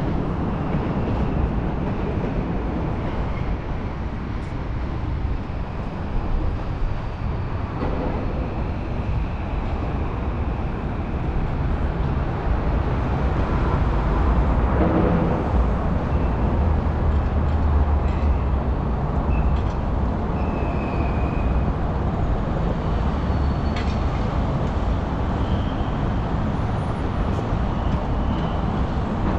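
Steady city traffic rumble, a little heavier in the middle stretch, with a few faint short high tones here and there.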